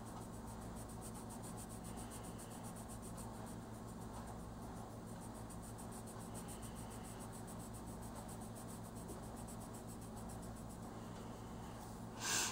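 Faint scratching of a red oil-based colored pencil shaded lightly across a coloring-book page, laying down a first base layer, over a steady low hum. A brief louder rustle near the end.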